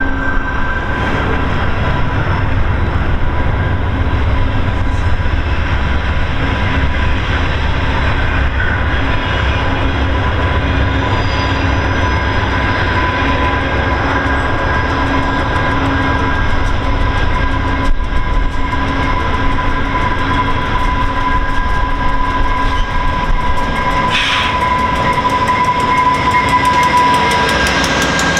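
VIA Rail passenger train led by two GE P42DC diesel locomotives rolling past at platform distance. The heavy low diesel rumble is strongest while the locomotives approach and pass, then gives way to the rolling noise of the coaches. A steady high-pitched whine runs throughout.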